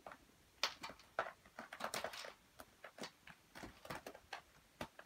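A kitten's claws hooking into and pulling at a fabric curtain as it climbs, a run of quiet, irregular scratchy clicks, the claws snagging the cloth.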